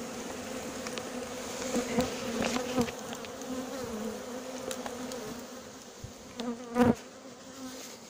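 A mass of honeybees buzzing around an opened box of comb: a steady, even drone. A few brief knocks of handling cut through it, the loudest close to the end.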